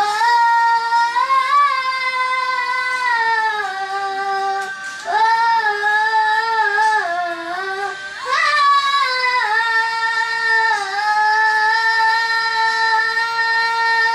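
A young girl singing into a handheld microphone: three long phrases of high held notes that bend up and down in pitch, the second beginning about five seconds in and the third about eight seconds in.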